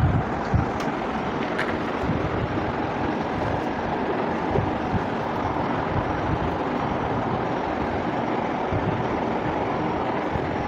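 Steady rushing background noise throughout, with a few low knocks near the start.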